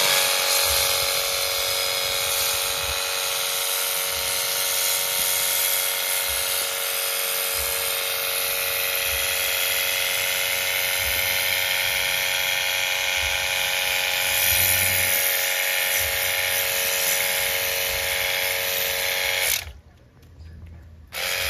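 A small electric motor whining at one steady pitch, cutting off suddenly near the end and starting again briefly just after.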